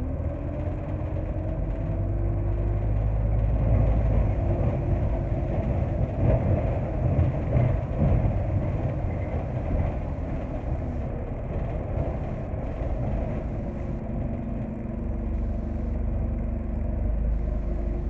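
Bus engine and drivetrain running, heard from on board as the bus moves along a street: a steady low rumble with a whine that rises in pitch during the first few seconds as the bus picks up speed.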